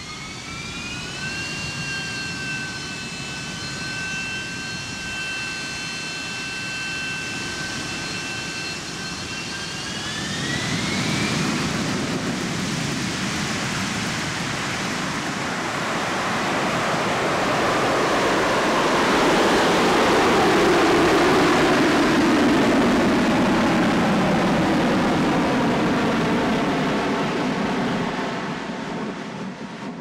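Harrier jump jet's Pegasus turbofan spooling up for a vertical take-off. A high whine climbs, holds steady, then climbs again about ten seconds in as the engine runs up to a loud roar. A pitch falls through the roar before it fades near the end.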